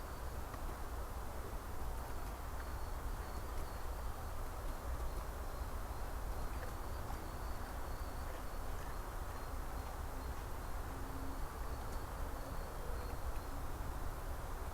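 Forest ambience through a trail camera's microphone: a steady low rumble and hiss, with a faint high chirping repeating in short bursts.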